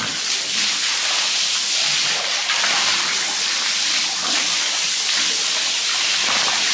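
Water spraying steadily, a constant even hiss.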